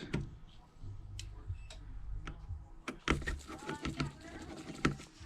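Scattered light clicks and taps of a small precision screwdriver and tiny phone screws being handled and set down, irregular and a second or so apart, over a faint low hum.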